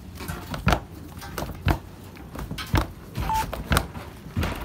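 A sea turtle lying on its back on a wooden table slaps its front flippers against the boards, giving heavy thuds about once a second.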